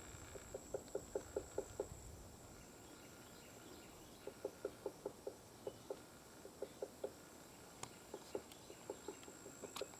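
Red-bellied woodpecker pecking on a tree, in bouts of quick taps at about four or five a second with short pauses between. A steady high insect buzz runs underneath.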